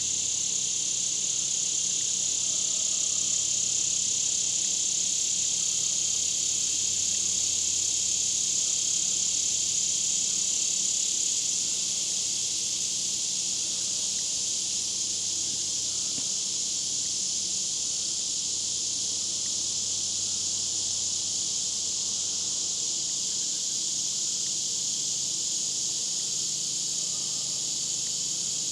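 Insect chorus: a steady, unbroken high-pitched drone that eases off slightly about halfway through.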